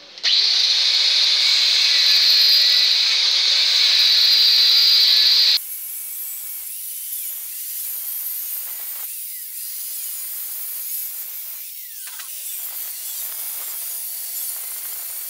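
Small angle grinder with a cut-off disc cutting cracks out of a cylinder head: a loud, steady high whine that changes abruptly about five seconds in to a quieter, hissing grind as the disc works in the metal.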